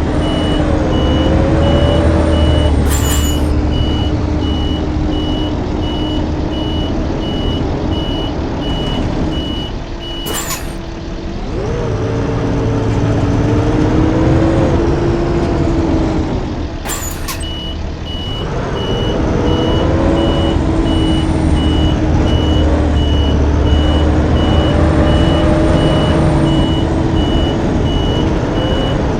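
Blue Bird school bus diesel engine running, its pitch wavering up and down with a steady high whine over it. Three short sharp clicks are heard, and the engine note drops away twice before building again.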